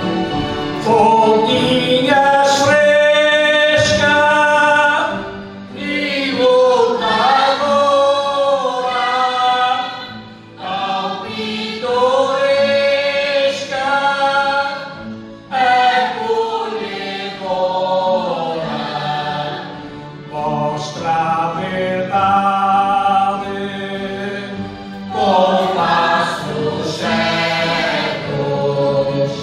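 A group of voices singing a bailinho song with musical accompaniment, in sung lines of about five seconds each.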